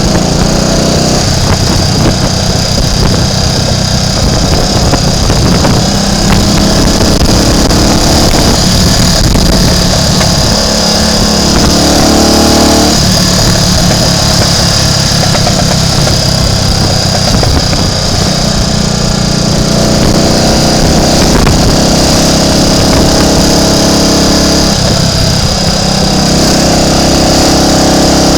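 Triumph Tiger Cub's single-cylinder four-stroke engine running steadily under way. The engine note rises briefly about twelve seconds in and rises again near the end.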